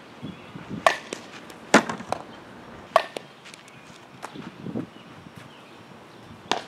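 A softball hit and caught in leather gloves during infield drills makes a series of sharp cracks, four of them loud, the loudest about two seconds in. Softer knocks and scuffs fall between them.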